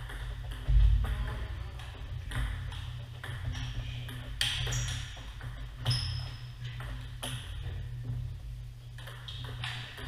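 Table tennis rally: the ball clicks off the paddles and bounces on the table in a string of sharp ticks at uneven intervals, over a steady low hum.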